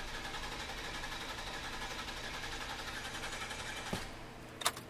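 Hummer H2 6.0L V8 cranking on the starter in clear flood mode, with fuel cut off, in an even rhythm, then stopping about four seconds in with a click. One compression stroke in each cycle sounds off, which the mechanic takes for one cylinder with a mechanical fault.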